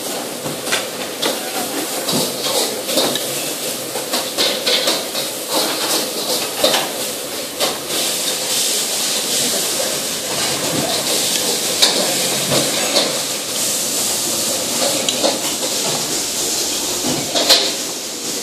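Steady hiss of kitchen background noise with frequent light clicks and clatter of utensils, such as a knife scraping and tapping a steel bowl of filling.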